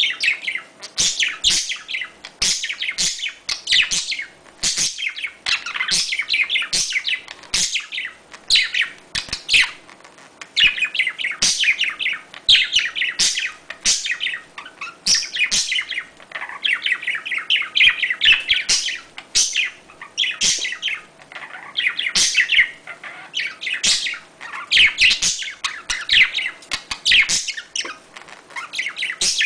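Budgerigar chattering during mating, in quick high runs of chirps and warbles that come in bursts of about a second with short breaks between them.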